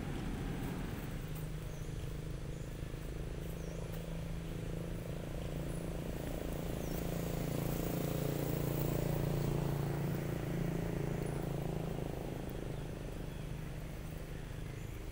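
Low, steady engine hum of a passing motor vehicle. It grows louder toward a peak about two-thirds of the way through, then fades.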